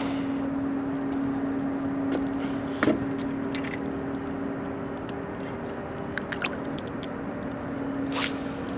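A boat motor running steadily at one even pitch, easing past the middle and coming back near the end, with a few faint clicks.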